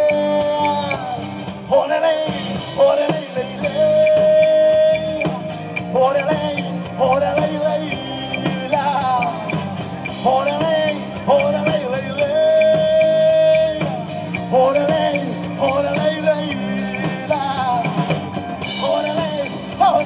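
Live band music: congas, acoustic guitar and electric bass playing a rhythmic tune, with a melody line that bends and holds notes over them.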